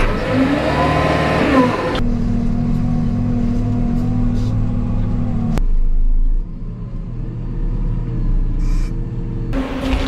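JCB TM420 telescopic wheel loader's diesel engine working steadily, heard from inside the cab. A whine rises and falls about a second in. The engine note changes abruptly about two and five and a half seconds in.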